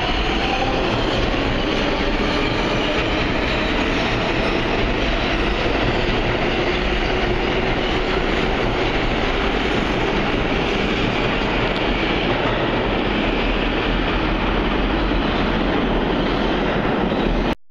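New York City subway R142-family train running past, a steady loud rumble of wheels on rail with some clickety-clack, and a faint rising whine in the first second.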